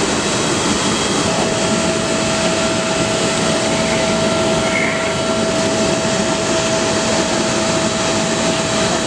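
Steady, loud rushing noise from aircraft machinery running at a parked Boeing 777, with a thin, steady whine coming in about a second in.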